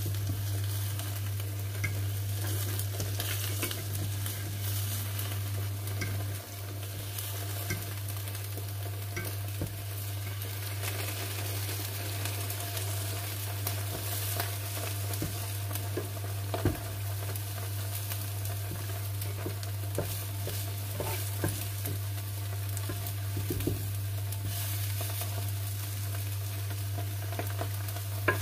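Egg sizzling steadily as it fries on a hot oiled griddle pan, with a few light scrapes and taps of a fork and wooden spatula as the omelette is rolled. A steady low hum runs underneath.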